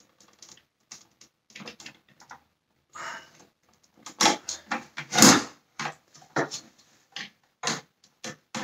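Screwdriver and fingers working at plastic plug connectors inside a vacuum cleaner's motor housing: a string of short, irregular scrapes, clicks and knocks on plastic, loudest and busiest about four to five and a half seconds in.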